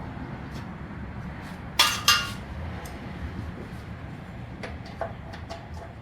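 Two sharp metallic clinks about a third of a second apart, about two seconds in, each with a brief ring, among lighter clicks and ticks of metal tools and parts being handled.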